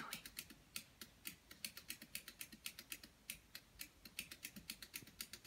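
Small battery toy Godzilla robot walking on a hardwood floor, its mechanism and feet making a rapid, steady clicking of about six or seven faint clicks a second.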